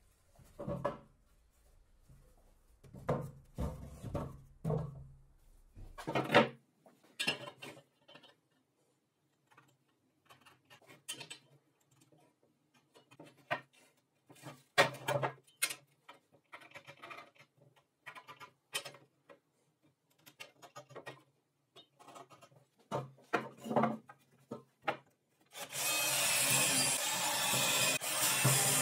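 Scattered knocks and clatter of wooden boards being handled on a wooden workbench. Near the end a cordless drill runs steadily for about three seconds, boring into a laminated board.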